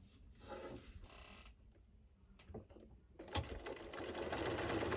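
Bernina sewing machine starting up about three seconds in, after a sharp click, and then running steadily as it stitches down a fabric seam.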